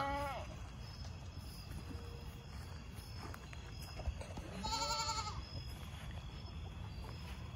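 Goats bleating: the tail of one call right at the start, then a longer, wavering bleat about five seconds in.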